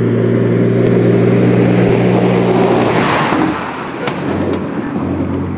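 GINAF Dakar rally truck's diesel engine running hard as the truck drives toward and past at speed. The steady engine drone breaks into a broad rush of noise as it passes, about three seconds in, then sounds lower and quieter as the truck drives away.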